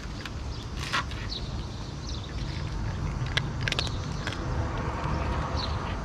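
A cat eating dry kibble, a handful of sharp crunches spread through, over a steady low rumble.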